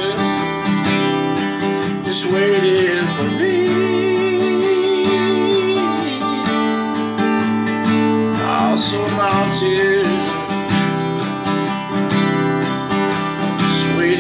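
Acoustic guitar strummed steadily through the chords of a slow country song, with a man's voice holding one long wavering note a few seconds in.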